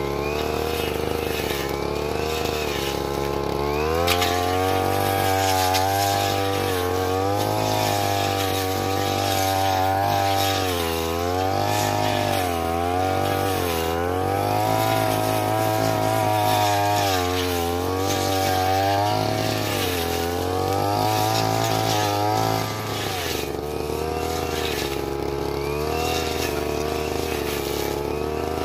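Stihl brush cutter engine running, speeding up about four seconds in and holding high revs with its pitch dipping and recovering again and again as it cuts through brush, then dropping back to a lower steady speed a few seconds before the end.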